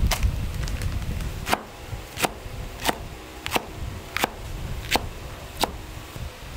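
Knife chopping on a cutting board in an even rhythm: about eight sharp strokes, one every two-thirds of a second.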